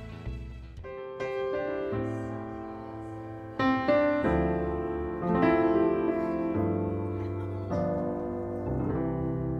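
Background piano music, slow and gentle, with a new note or chord struck about every second.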